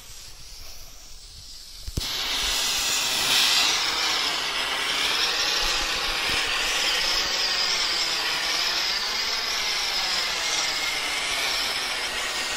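Zap Gun handheld fountain firework spraying sparks: faint at first, then a sharp pop about two seconds in, after which it hisses loudly and steadily with a slowly wavering rush.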